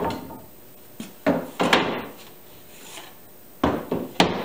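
Oak boards knocking against each other and the workbench as they are handled and set down: two sharp wooden knocks a little over a second in and two more near the end.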